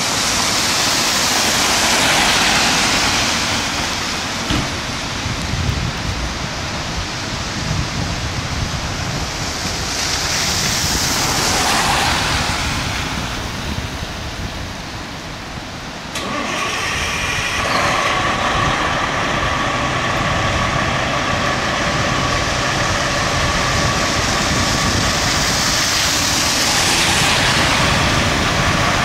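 Fire trucks' diesel engines idling in the station bays, with a steady low rumble and swells of wet-road hiss that build and fade three times. About halfway through the sound jumps in level and a steady whine joins the engine noise.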